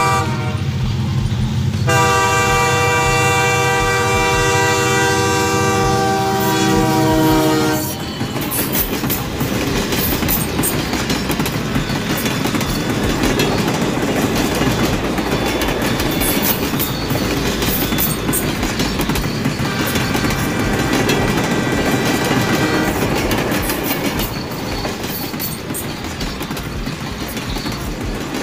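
Battery toy train running on its plastic track: its horn sounds steadily for about six seconds, then its running clatter and motor noise carry on, with a fainter horn again about two-thirds of the way through.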